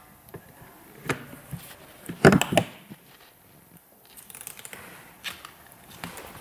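Handling noise: a few sharp clicks and knocks, the loudest cluster about two seconds in, with light rustling a little past the middle.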